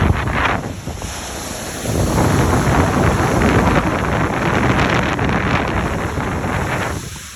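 Strong gusting wind buffeting the microphone, a loud rumbling rush that swells about two seconds in and eases near the end.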